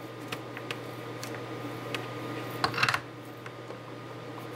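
Steady low electrical hum with faint scattered light clicks, and a brief louder crackle of clicks about two and a half seconds in.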